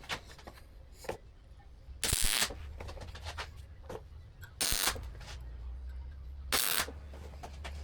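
Welder laying three short tack welds on a steel battery tray, each a burst of crackle about half a second long, about two to two and a half seconds apart, over a steady low electrical hum.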